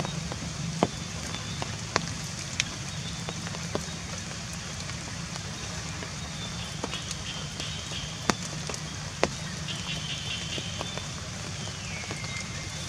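Rain dripping on wet vegetation: a steady hiss with a few sharp ticks scattered through. Near the end, a faint high whistle falls in pitch.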